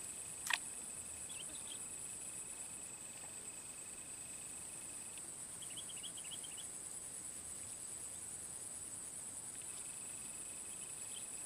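Steady high-pitched insect chorus, with a fainter thin whine that stops about five seconds in and returns near the end, and a few short chirps. A single sharp click about half a second in.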